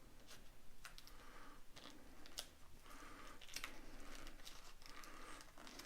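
Product packaging being cut and pulled open with a small pocketknife blade: irregular clicks, scrapes and plastic crinkling.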